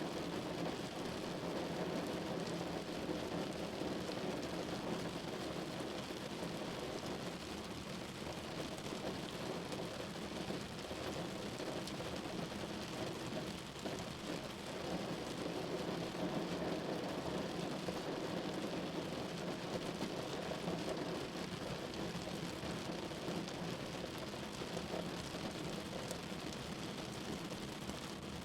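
Steady rain falling, a continuous even hiss of rain on surfaces.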